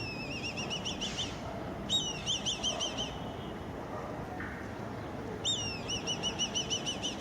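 A kite calling three times. Each call is a falling whistle followed by a quick run of short, shrill rising notes, about seven or eight a second.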